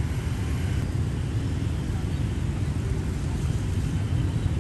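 Road traffic ambience: a steady low rumble of cars and motorbikes.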